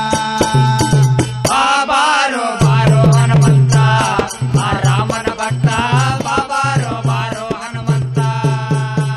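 Indian devotional bhajan music: a harmonium holding sustained notes over steady tabla strokes and the rapid clink of small hand cymbals. A wavering melodic line rises over it for a few seconds in the middle.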